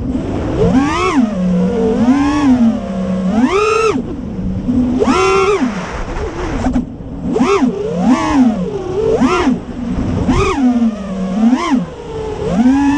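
FPV quadcopter's four T-Motor F40 Pro IV 2400KV brushless motors spinning HQ Ethix P3 props, their whine rising and falling in pitch with about ten quick throttle punches. Wind rumbles on the onboard camera's microphone underneath.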